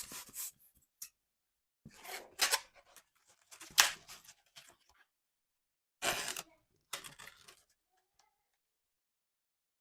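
Latex balloons being handled, stretched and twisted into a tie, in several short bursts of rubbery squeaking and crinkling with gaps between. A single sharp crack about four seconds in is the loudest sound.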